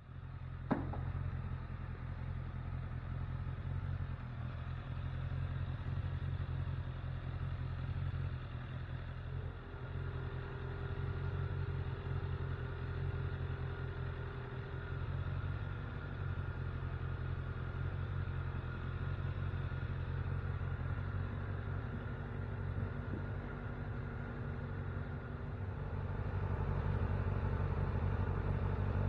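Motorcycle engine idling steadily, getting a little louder near the end.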